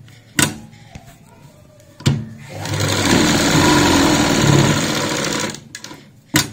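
Sewing machine stitching fabric: a sharp click about half a second in and another at two seconds, then the machine runs for about three seconds and stops, followed by a few lighter clicks and a sharp click near the end.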